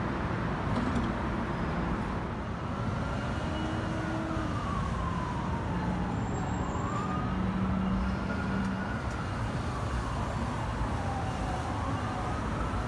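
An emergency vehicle's siren wailing, its pitch rising and falling slowly, coming in about three seconds in over a steady background rumble.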